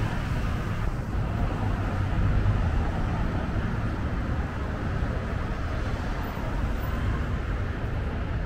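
Steady city street traffic noise: a low rumble of cars passing, with no single event standing out.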